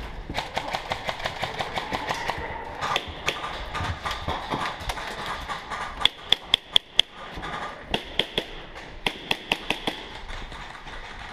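Airsoft guns firing sharp single shots in quick succession. A rapid run of shots comes in the first couple of seconds, then a loud group of about five shots some six seconds in, and two more short strings near the end.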